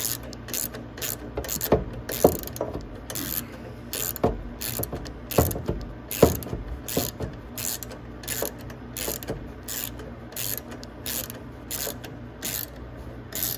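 Ratchet wrench clicking in short, even bursts, about two to three a second, as it tightens a battery bracket bolt and nut.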